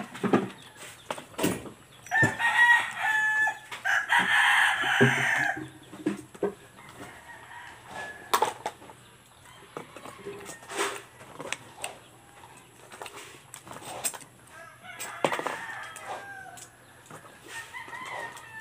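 A rooster crows once, loud, starting about two seconds in and lasting about three and a half seconds. A fainter call follows about fifteen seconds in, with scattered light clicks and taps throughout.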